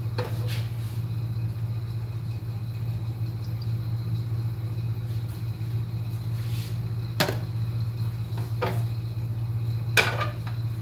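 A steady low hum with three sharp metal knocks: an aluminium pressure cooker pot being handled and set down on a gas stove's grate. The loudest knock comes near the end.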